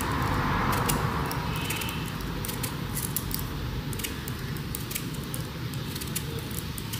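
Metal vegetable peeler scraping the skin off a raw turnip: a run of short, irregular rasping scrapes as the peel comes away in one long strip.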